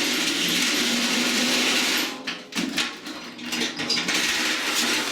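A power tool running steadily on the microwave's metal casing, then stopping about two seconds in, followed by irregular metallic knocks and clatter.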